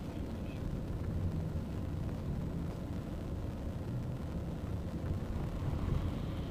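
Street traffic: cars and motor scooters passing close by, giving a steady low rumble of engines and tyres.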